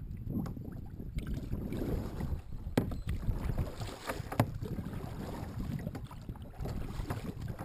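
Double-bladed kayak paddle strokes dipping and splashing in the water, with wind rumbling on the microphone and a few sharp knocks about three and four seconds in.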